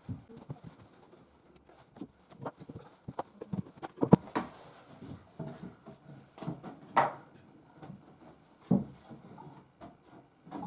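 A series of irregular light knocks and taps, louder ones about four, seven and nine seconds in.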